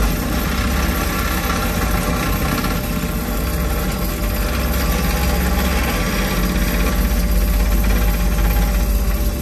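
Excavator's diesel engine and hydraulics running steadily under load, heard from inside the operator's cab, growing a little louder near the end.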